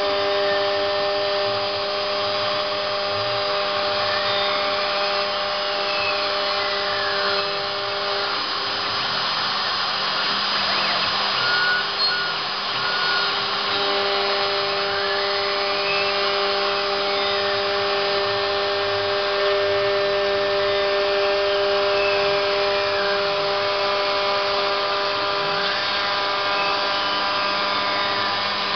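Hobby CNC machine milling PVC: the motor runs with a steady hum, overlaid every few seconds by a whine that rises and then falls in pitch as the machine's axes move. The steady tones drop out briefly in the middle before resuming.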